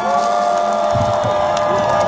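Large concert crowd cheering and whooping at the end of a song, with several long held shouts rising and falling over the crowd noise.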